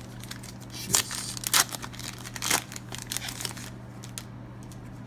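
Foil Pokémon booster pack wrapper being torn open and crinkled: a run of sharp crackling tears, loudest about a second and a second and a half in, dying down after about three and a half seconds.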